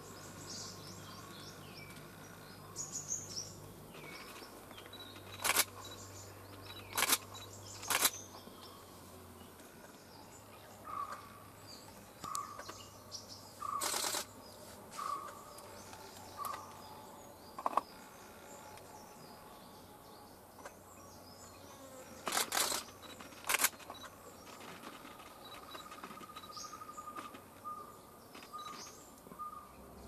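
Woodland birds calling, with runs of short repeated notes, broken by loud sharp camera-shutter clicks about seven times, one of them a short rapid burst.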